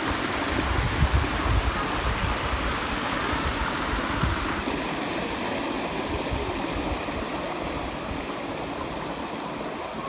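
A small stream flowing with a steady rushing sound, growing a little fainter about halfway through, with some low rumbling on the microphone in the first few seconds.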